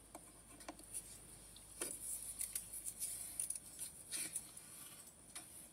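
Faint handling noise from gloved hands working with medical supplies: light rustling and scraping with scattered small clicks, bunched in the middle, over a steady high hiss of replayed body-camera audio.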